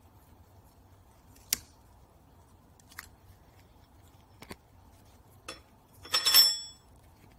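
Metal O-ring stretcher and split membrane stretcher clinking against each other while an O-ring is worked over the membrane: single sharp clicks about every second and a half, then a short scraping metal clatter with a brief ring near the end, the loudest part.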